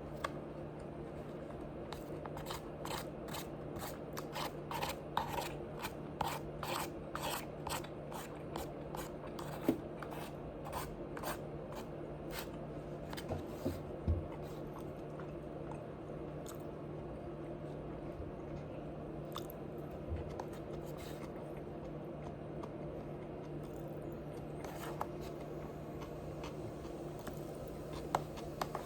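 Close-up chewing of crunchy food: a quick run of crisp crunches, two or three a second, for about the first twelve seconds, then slower, scattered bites and chews. A steady low hum runs underneath.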